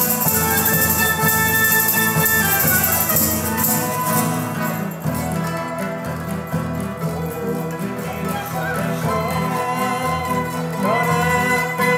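Portuguese folk ensemble of acoustic guitars, mandolin-type plucked strings and accordion playing a traditional Reis (Epiphany) song. Bright shaken or jingling percussion joins in over the first few seconds and drops out about five seconds in.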